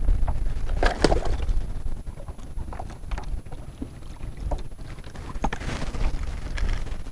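Water splashing and sloshing as a large redfish is held by the tail in the water at a kayak's side to revive it for release, with one louder splash about a second in. Wind buffets the microphone with a low rumble, heaviest in the first two seconds.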